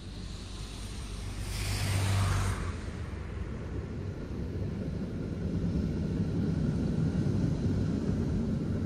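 A car swishes past close by about two seconds in, its tyre noise rising and falling away. Then the low rumble of a Konstal 805Na tram pair running on its track builds as the tram draws near and passes.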